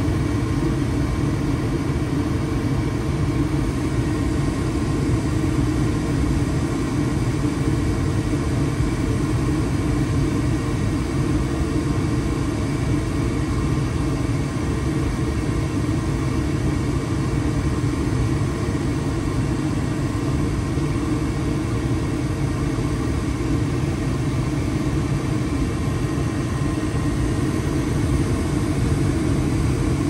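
2007 Heil gas furnace running steadily with its three burners lit: an even, unchanging low rumble.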